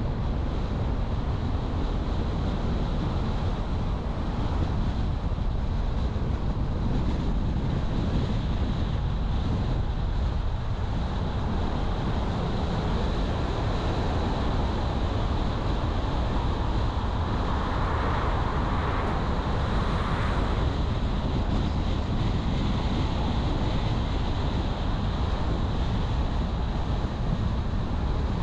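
Steady road and wind noise of a car driving, with a brief swell about two-thirds of the way through.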